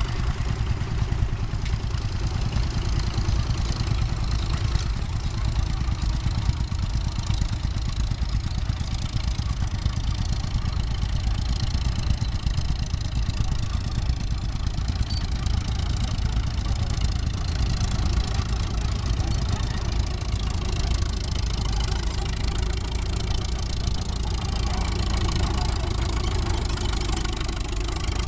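Allis-Chalmers K crawler's four-cylinder engine running steadily under load as it pulls a harrow across ploughed ground.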